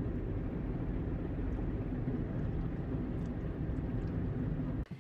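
Car driving noise heard from inside the cabin: engine and road noise, steady and even with a faint hum, cutting off suddenly just before the end.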